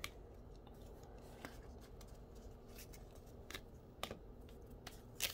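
Faint handling of a stack of 2020 Donruss football trading cards: a few light clicks and taps as the cards are flicked and squared up, over quiet room tone. Right at the end, louder crinkling of a foil pack wrapper begins.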